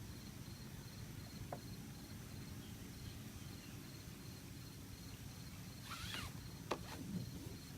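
Crickets chirping in a steady pulsing train, high-pitched, over a low steady rumble of outdoor background noise. A sharp click about two-thirds of the way through.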